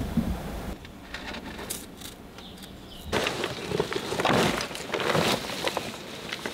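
Rustling and scraping of a backpack being handled and set down on dry forest ground, with footsteps and sharp clicks among the rustle, loudest about four to five seconds in.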